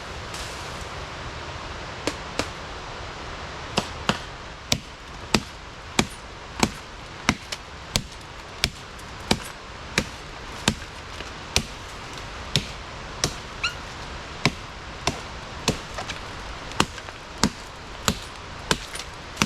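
Steady chopping: a hand tool striking wood in sharp, even blows, about three every two seconds, starting about two seconds in. A constant rush of flowing water runs underneath.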